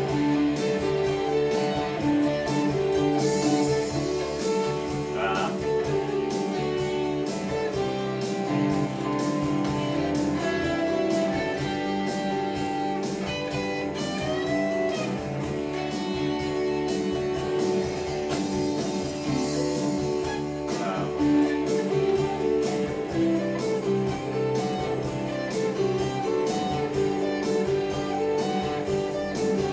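Guitar playing a song, with other music and a steady beat running underneath.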